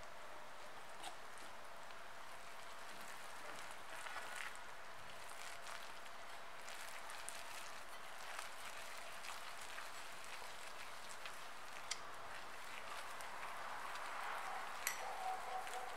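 Wire whisk stirring flour and milk into a sticky dough in a glass bowl: a steady soft, wet crackle with a few light clicks of the wires against the glass.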